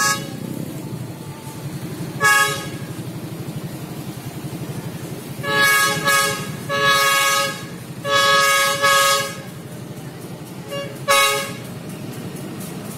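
Diesel locomotive air horn sounding a series of chord-toned blasts, some short and some about a second long, as a warning while the train approaches a level crossing. A steady low engine rumble from the approaching locomotive runs beneath the horn.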